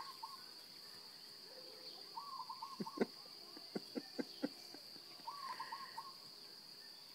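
Faint outdoor ambience: a steady high-pitched insect drone, with a short trilled call heard three times and a few soft clicks about three to four and a half seconds in.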